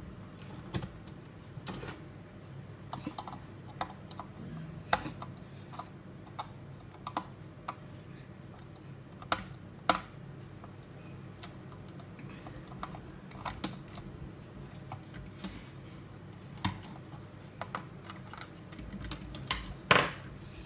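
Irregular small clicks and taps of plastic as hands work on the underside of a toy RC car's plastic chassis, opening its battery compartment. The loudest clicks come in a pair near the end.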